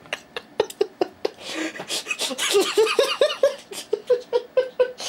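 Several sharp clicks and taps, then a man laughing in quick, breathy bursts through the second half.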